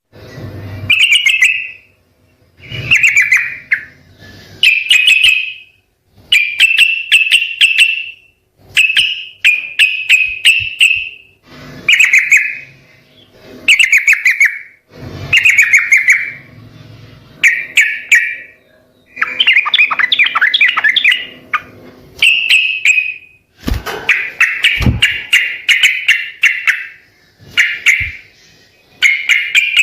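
Yellow-vented bulbul (trucukan) singing: short, fast chattering phrases repeated one after another, one every second or two, with a couple of dull low thumps near the end.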